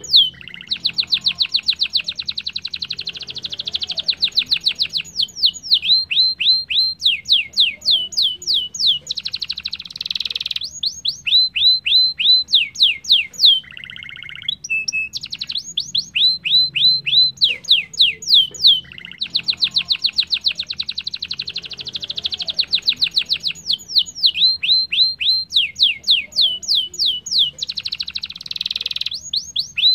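Domestic canary singing a long, continuous song: rapid trills alternate with runs of quick falling whistled notes, with a brief break and a few lower notes near the middle. The same sequence of phrases comes round twice.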